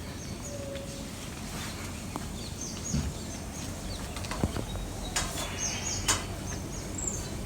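A bird calling: bouts of short, high, falling notes, repeated several times in a row, three bouts in all. A few sharp clicks come in the second half.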